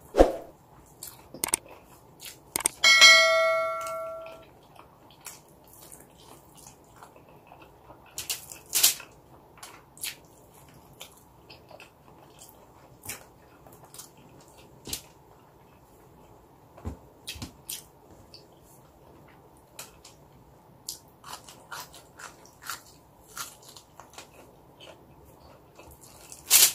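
Close-up eating sounds of garlic rice and longganisa sausage eaten by hand: chewing, with scattered small clicks and crinkles of fingers and food on aluminium foil. About three seconds in, a single loud bell-like ding rings out and fades over a second or so.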